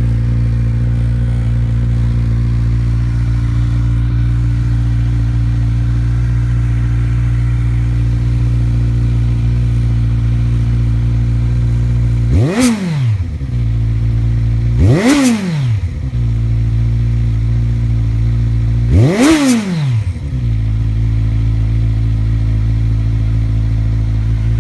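2013 Kawasaki Z1000's inline-four idling through M4 slip-on exhausts, with three quick throttle blips about halfway through, each a sharp rise and fall in pitch back to idle. Very loud.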